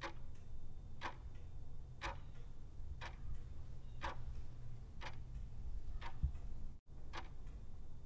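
A clock ticking steadily, about one tick a second, over a low background rumble.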